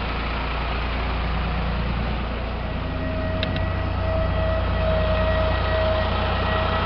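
A Farmtrac tractor's diesel engine running steadily under heavy load as it pulls a trolley of sand uphill, with road noise. A steady whine comes in about three seconds in and rises a little.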